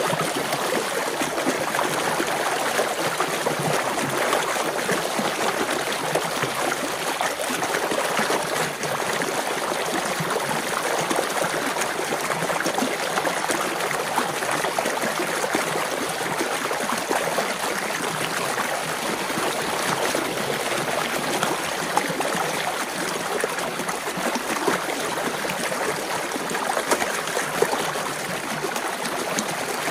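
Water rushing steadily through a breach in a beaver dam of sticks and mud, pouring out into a shallow stream.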